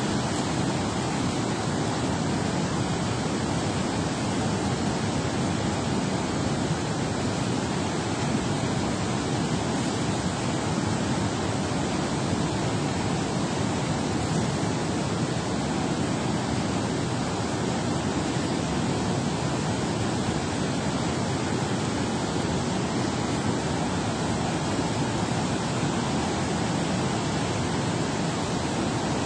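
Steady rushing of water pouring out of a dam spillway into the turbulent tailwater below, an even unbroken roar.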